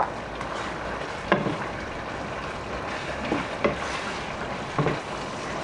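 Seafood sauce sizzling steadily in a pan on the stove, with a few sharp knocks of a utensil against the pan as it is stirred.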